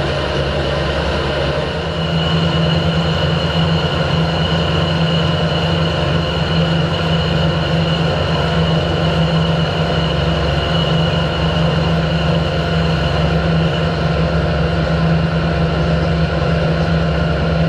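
Harrison 12-inch swing lathe running, spinning a steam-locomotive cylinder while a boring bar cuts inside its bore. It gives a steady machine hum with a thin, steady high whine above it, and gets a little louder about two seconds in.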